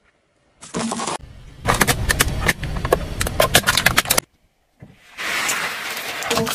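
Car tyre rolling over and crushing something crunchy: a rapid string of sharp cracks and crunches over a low tyre rumble for about two and a half seconds, cut off abruptly. After a brief silence a steady rushing noise follows.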